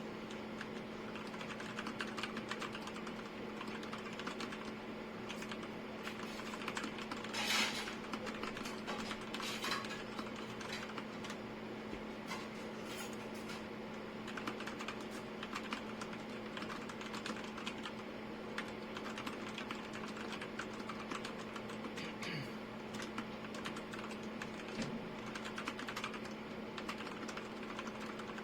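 Continuous typing on a Royal Kludge RK G87 mechanical keyboard: a fast, irregular run of key clicks and clacks, with one louder clatter about seven and a half seconds in. A steady low hum runs underneath.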